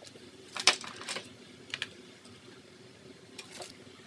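Small hard plastic clicks and taps from parts being handled and fitted onto a Tamiya RC car kit's plastic chassis. Four or five short, sharp clicks come irregularly, the loudest about a second in.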